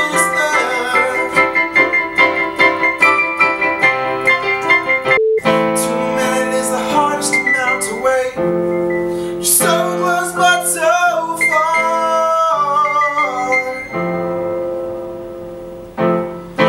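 Electronic keyboard played by two people at once, with a man singing over it. There is a short silent gap about five seconds in, and a held chord fades out near the end.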